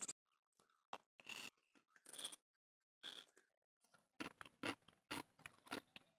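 Close-miked eating by hand: chewing and wet mouth clicks, mixed with fingers working rice and curry on a plate. Scattered clicks at first, then a quick run of them from about four seconds in.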